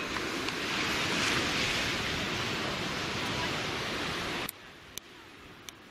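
Surf washing onto a sandy beach: a steady rushing hiss that swells about a second in, then cuts off abruptly about four and a half seconds in, leaving a much quieter background with a few faint clicks.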